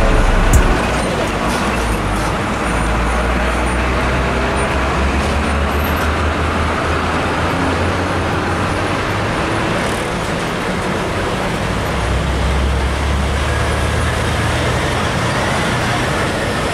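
Diesel engine of a DAF CF truck pulling a loaded trailer at low speed, a steady low rumble over general road traffic noise. A few sharp clicks sound right at the start.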